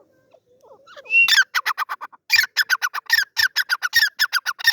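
Teetar partridge (francolin) calling. After faint sounds at the start, about a second in it breaks into a loud, rapid run of short, harsh notes, several a second, in repeated phrases.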